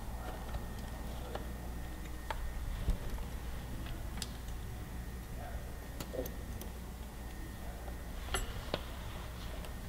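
Scattered light clicks and taps of fingers fitting throttle cables into a motorcycle throttle cam and housing, over a steady low hum.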